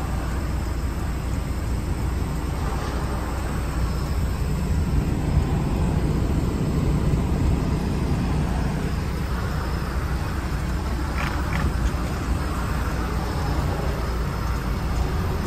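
Steady low rumble of an International LoneStar semi truck's diesel engine and road noise, heard from inside the cab as the truck drives along the highway.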